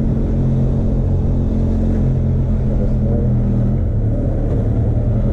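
Benelli TRK 502 X's 500 cc parallel-twin engine pulling the fully loaded bike up a steep climb in second gear, a steady low engine drone. On the taller 15-tooth front sprocket the engine is still coping on the slope in second.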